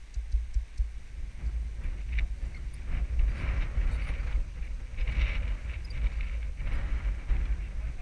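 Wind rumbling and buffeting on a helmet-mounted action camera's microphone while riding, with irregular thuds of horses' hooves in soft sand.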